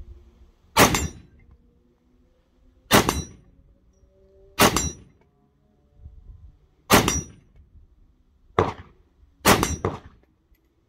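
AR-15 rifle chambered in 7.62x39 fired in single semi-automatic shots: six shots, mostly one and a half to two seconds apart, the last two about a second apart, each trailing off briefly.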